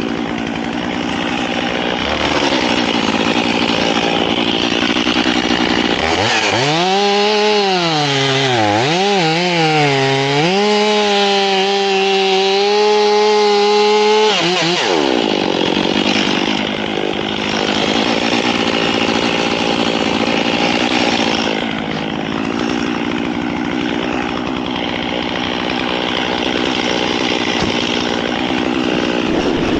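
Two-stroke chainsaw running and cutting into the wood of a dead pine. About six seconds in, its engine note wavers and dips, then holds a clear steady pitch for several seconds before the rougher cutting sound returns.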